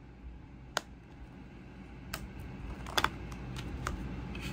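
Plastic DVD keep case being handled and snapped open: a handful of sharp plastic clicks, the loudest a quick pair about three seconds in.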